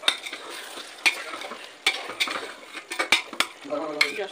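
A metal spoon stirring chicken in masala in a steel pot, with about seven sharp knocks and scrapes against the pot's sides. The frying masala sizzles steadily underneath.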